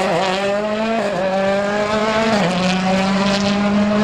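Rally car engine at full throttle, pulling through the gears. The pitch climbs steadily and drops sharply at upshifts about a second in and again midway through.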